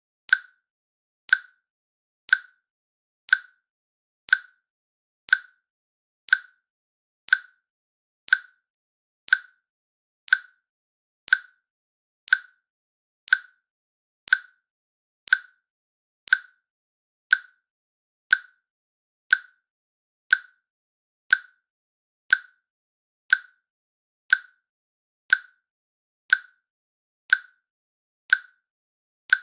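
Countdown timer's click sound effect, one short click every second in an even, steady beat.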